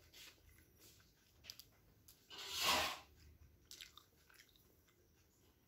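Close-up mouth sounds of a person chewing steamed chicken momos: faint wet clicks and chewing, with one short louder rushing sound, like a breath or slurp, about two and a half seconds in.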